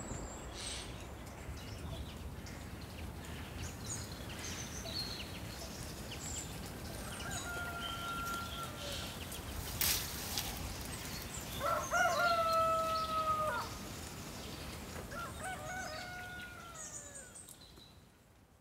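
A rooster crowing three times, each crow a drawn-out call of about a second and a half, the middle one loudest, with small birds chirping now and then. A single sharp click sounds about halfway through.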